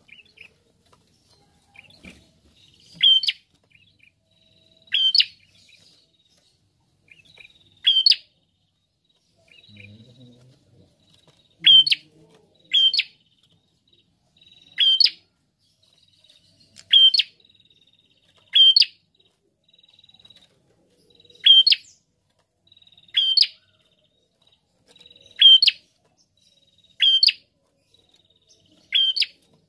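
A caged red-headed prenjak, a tailorbird, calling. It gives sharp, short, high notes about every two seconds, with softer notes in between.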